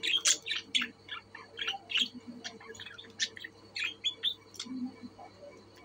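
Budgerigars chirping: a quick run of short, high chirps, several a second, busiest in the first second and thinning out near the end.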